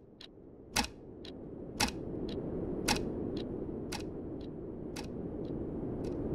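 Clock ticking: a sharp tick about once a second with a softer tock between, over a low rushing ambience that slowly grows louder.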